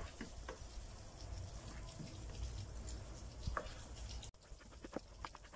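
Kitchen knife slicing ham on a bamboo cutting board, the blade knocking on the board now and then. A faint steady background hiss drops away suddenly about four seconds in.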